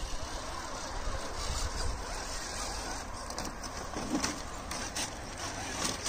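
Radio-controlled scale crawler driving on the trail: small electric motor and gears whining, with a few scraping clicks from about four seconds in.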